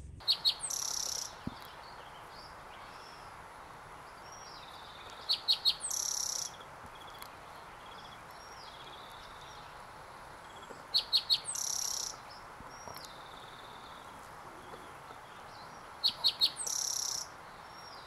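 A songbird singing the same song four times, about five seconds apart: three or four sharp high notes followed by a trill about a second long. Softer whistled calls of another bird come between the songs.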